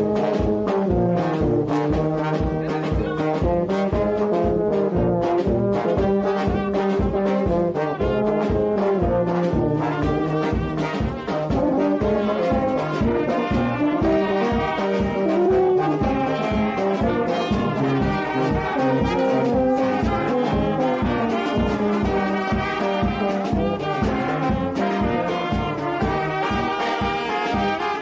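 Brass band of trumpets and trombones playing a melody in harmony over a steady, fast beat.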